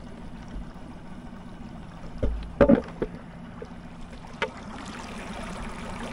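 Small Suzuki outboard motor running steadily with water churning behind it while towing a kayak. A few sharp knocks come a little past two seconds in, and one more about four and a half seconds in.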